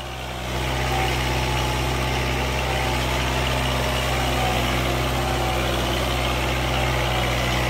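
Kubota 4x4 tractor's diesel engine running steadily under the load of a mounted plough cutting through soil, in two-wheel drive. It gets louder about half a second in, then holds an even note.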